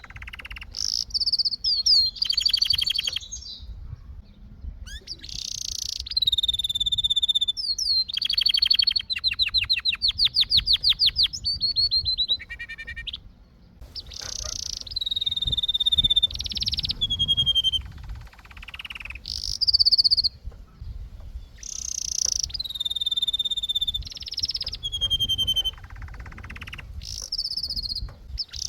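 Domestic canary singing: a run of phrases, some made of quick downward-sweeping notes and some of fast rapid-fire trills, with short pauses between them.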